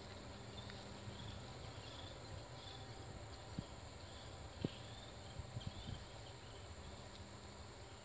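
Faint high chirping scattered through quiet outdoor ambience with a low rumble, and a few soft clicks and knocks about halfway through.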